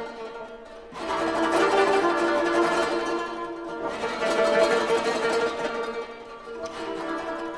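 Japanese koto played with a busy run of plucked notes that ring on over one another. The playing thins out briefly just before a second in, then swells back to full strength.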